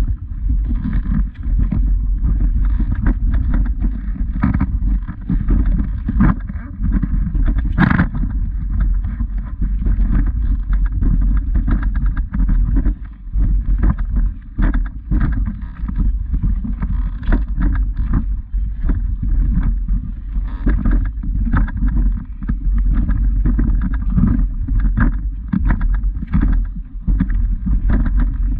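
Footsteps of a walker climbing a stony woodland path, with irregular knocks and scuffs over a steady muffled rumble from a body-carried camera moving with each step.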